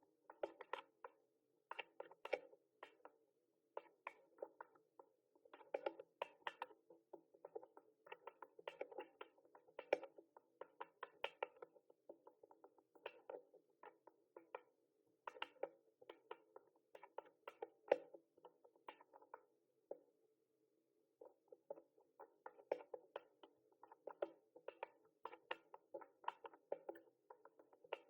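Typing on a mechanical keyboard: quick, irregular runs of key clicks, with a short pause about twenty seconds in.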